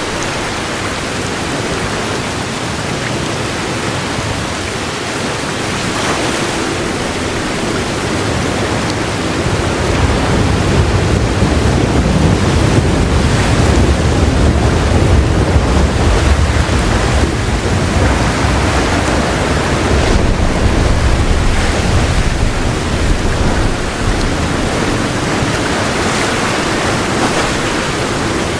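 Heavy rain pouring steadily, with a long, low thunder roll rumbling in about a third of the way through and dying away near the end.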